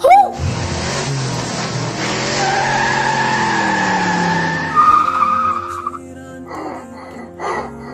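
Car tyres screeching in a long skid under hard braking, the sign of a near-collision; the squeal lasts about five seconds and rises to a higher pitch near the end. Soft background music runs underneath.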